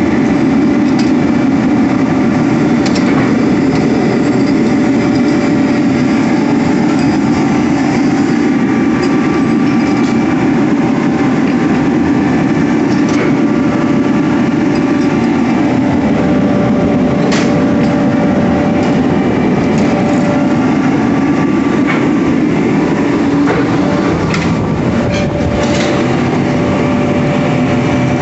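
Forge-shop machinery running steadily: a loud, even drone with a faint hum on top, broken by a few light metallic clicks and clinks from rods being handled.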